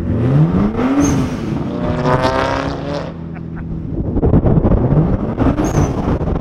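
Nissan Skyline R34's straight-six engine revved twice through a freshly fitted Tomei Expreme titanium exhaust. Each blip rises in pitch and falls back: the first right at the start, the second about four and a half seconds in.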